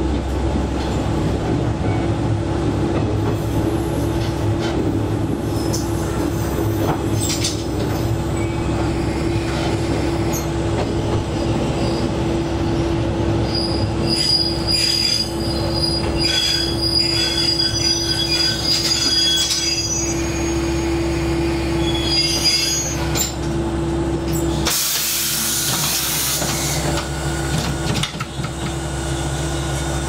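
Diesel railcar running and slowing into a station, heard from the cab, with high-pitched wheel and brake squeal in the middle. About 25 seconds in, the steady running tone stops as it comes to a halt, and a burst of air hiss follows.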